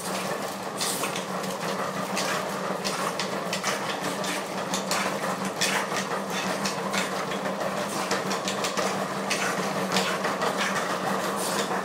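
Dog mill running under a trotting French bulldog: a steady hum with a continual irregular clatter of clicks from the dog's paws and the moving tread.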